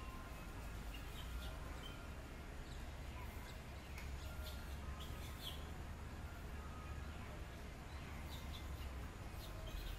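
Outdoor ambience: a steady low rumble with scattered short, high chirps and squeaks throughout.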